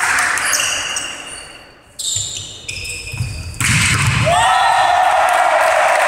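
Indoor volleyball rally: the ball being hit and thudding, with players' shoes on the court, in a large echoing hall. About three and a half seconds in, the crowd suddenly breaks into loud, sustained cheering and shouting as the point is won.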